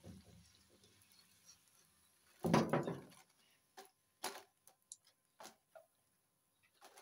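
Kitchen handling noises while fried gol gappa puris are scooped out of a karahi of oil: a short loud clatter about two and a half seconds in, then a string of light taps and clinks from the wire skimmer against the pan.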